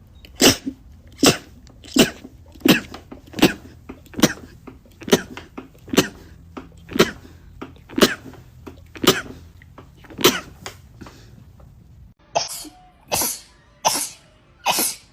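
A person sneezing in rapid-fire succession: a dozen or so short, sharp sneezes a little under a second apart. After a brief gap near the end, a second run of slightly longer sneezes begins.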